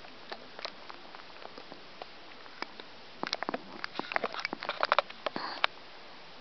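Dachshund snoring in its sleep: a run of quick clicking and popping sounds, sparse at first and then crowding together in the second half, with a short breathy puff near the end.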